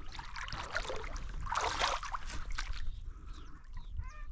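Water splashing and sloshing at the surface, loudest about one and a half to two seconds in, with scattered small clicks and a brief rapid chatter near the end.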